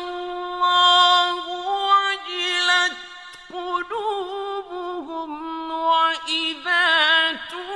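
Male voice reciting the Quran in slow, melodic tajweed style. It holds long drawn-out notes with ornamented pitch turns, with a brief pause for breath about three seconds in.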